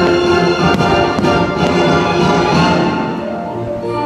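Orchestral fireworks-show soundtrack with strings and timpani, playing loudly, with a few sharp firework pops in the first two seconds.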